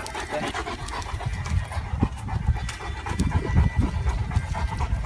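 St. Bernard panting as it walks on a leash.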